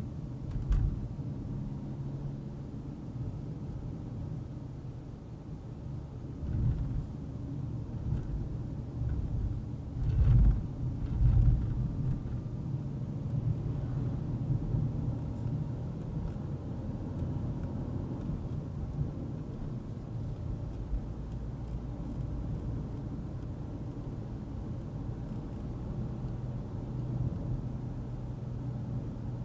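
Car driving along a road: steady engine hum and tyre and road noise, with a few louder low thumps about a second in, around six seconds in, and strongest around ten to twelve seconds in.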